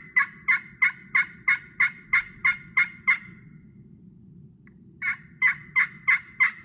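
A 3 1/4-inch titanium-over-glass turkey pot call worked with a striker, playing a steady run of high-pitched yelps, about three a second; the higher pitch comes from the glass soundboard. The yelping stops about three seconds in and starts again near five seconds.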